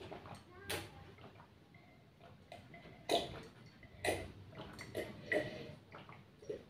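A person drinking water from a glass in a series of short gulps and swallows, spaced unevenly, the loudest about three seconds in.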